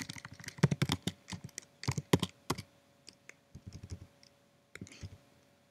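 Typing on a computer keyboard: a quick run of keystrokes for the first two and a half seconds or so, then scattered single key presses.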